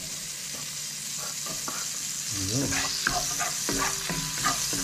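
Minced garlic sizzling in hot melted margarine in a stainless-steel wok, with a wooden spatula stirring and scraping the pan in the second half.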